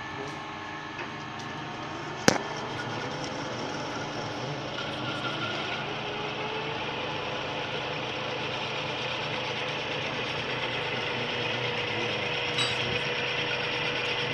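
Metal lathe running with a steady motor hum while turning the end of a metal pipe held in its chuck. A single sharp clack comes a little over two seconds in, and from about five seconds a steady cutting hiss with a thin tone sets in as the tool cuts the pipe.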